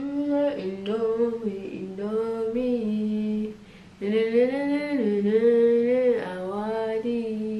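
A person singing unaccompanied, in two phrases of long held notes with slides between them and a short break about halfway through.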